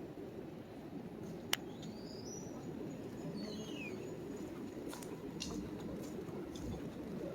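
Outdoor city ambience: a steady low murmur of street and people, with a sharp click about a second and a half in and a few short, falling bird chirps soon after.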